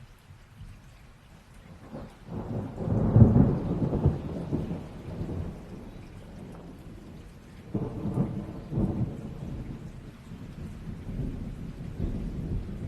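Thunderstorm: rain falling steadily under rolling thunder. A loud rumble builds about two seconds in, peaks soon after and fades over a few seconds, a second shorter rumble comes around the eight-second mark, and more rumbling follows near the end.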